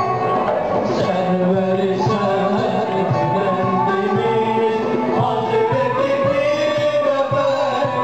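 Turkish Sufi hymn (ilahi) performed live: a man's voice sings over an ensemble with violin and qanun, with regular drum strokes underneath.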